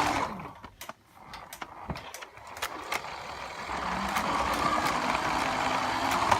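Toy RC car's small electric motor and drivetrain whirring, cutting out about half a second in; a few light clicks and knocks in the lull, then the whirring picks back up from about four seconds in.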